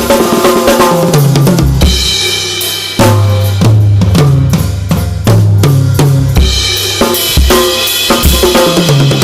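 Acoustic Pearl Session Studio Select drum kit played freestyle: kick, snare and cymbals with repeated fills down the toms, each run stepping down in pitch. The drums are freshly tuned and sound in tune.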